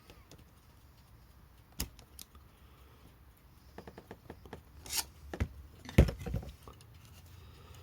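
Small metal clicks and taps of a tool pressing a pin into the alarm shaft of a clock movement: a few scattered ticks, then a cluster of small taps and two or three sharper clicks, the loudest about six seconds in.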